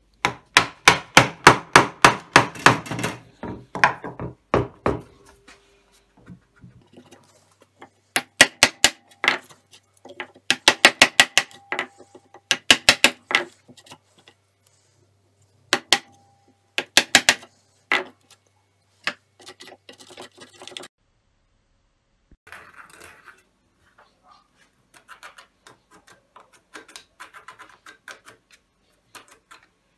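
Hammer blows on wood in quick runs of about four or five a second, coming in several groups. Fainter scraping and handling of wood follows near the end.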